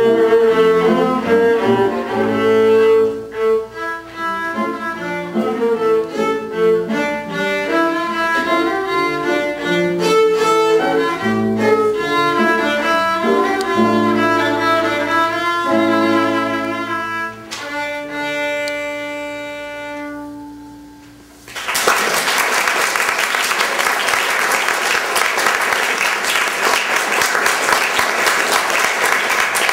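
Violin with Steinway grand piano accompaniment playing a classical piece, closing on long held final notes that fade away. Audience applause then breaks out and fills the last eight seconds or so.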